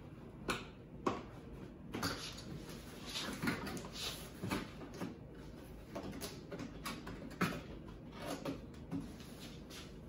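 Cardboard packaging being handled on a countertop: irregular knocks and taps of cardboard mixed with short sliding, scraping rustles, the sharpest knocks about half a second in, just after a second, and about seven and a half seconds in.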